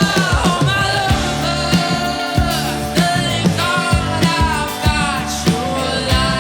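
Live rock band playing: the drum kit hits steadily under a held melody line that bends up and down in pitch.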